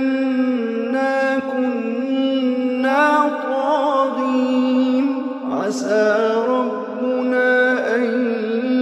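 A male Quran reciter chanting in melodic tajweed style: long, ornamented held notes, with a brief break and a new phrase starting just past the middle.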